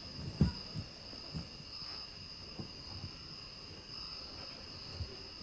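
Steady high chirring of crickets, a night ambience under the stage scene, with a few soft low thuds of movement on the stage, the strongest about half a second in.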